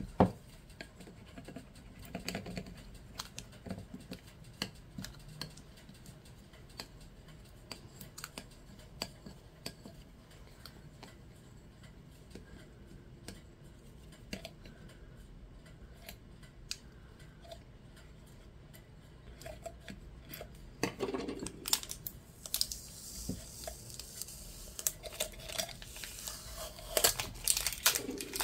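Plastic scraper rubbing and scratching over a vinyl stencil on a glass champagne flute, with small scattered clicks. Over the last several seconds, clear plastic transfer tape is peeled off and crumpled, with louder crinkling.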